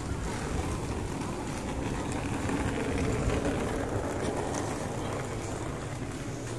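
Steady outdoor street ambience: an even background rumble and hiss, swelling slightly around the middle.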